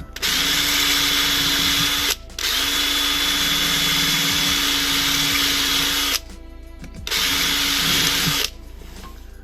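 Electric drill running in three bursts, the longest about four seconds, at a steady speed, as it drills a rivet out from the back.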